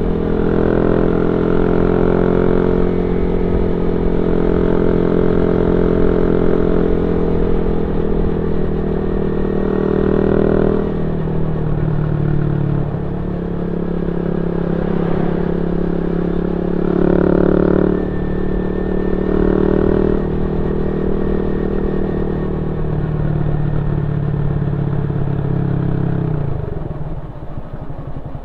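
Yamaha Y15ZR's 150 cc single-cylinder four-stroke engine running through an aftermarket YYPang exhaust while riding, its note rising and falling several times with the throttle. Near the end the throttle closes and the engine drops to a lower, quieter note, with wind rush on the microphone underneath.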